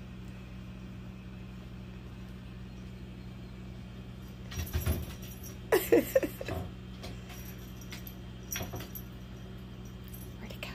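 A cat's paws thumping and claws scrabbling against kitchen cabinet doors as it leaps at a reflected spot of light, in a few short bursts around the middle and once more later. Under it runs a steady low hum.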